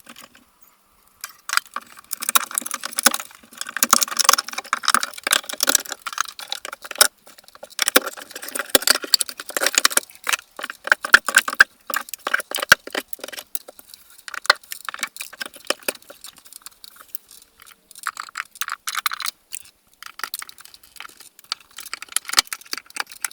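Irregular metallic clinking and rattling, with scattered sharp knocks, of small metal hardware being handled while ceiling light fixtures and their wiring are moved, starting about a second in.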